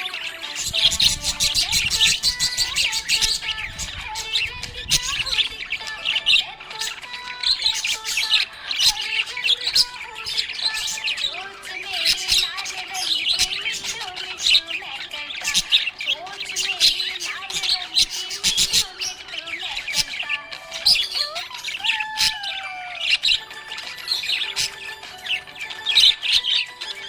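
Several small pet parrots chirping and squawking continuously, many short overlapping calls at different pitches with some lower warbling glides.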